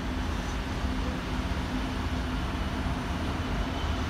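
Freight train of wagons rolling past, a steady low rumble with a faint steady hum underneath.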